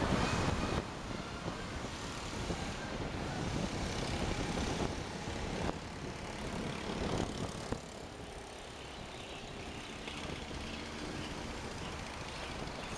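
Car moving in city traffic, heard from inside the cabin: a steady rumble of engine and tyre noise, with a couple of small knocks partway through.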